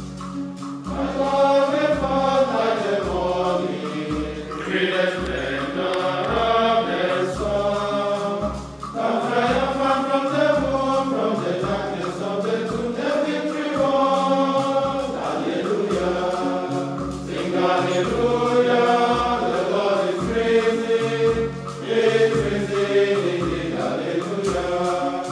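Male choir of monks singing a chant together in phrases, with a steady low beat just over once a second beneath the voices.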